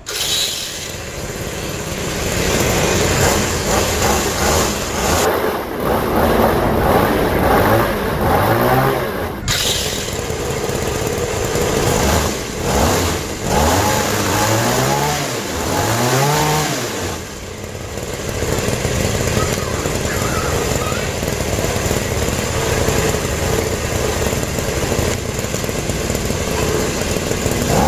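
A motor running over a steady rushing noise. Its pitch rises and falls several times in the middle, as if revving up and down.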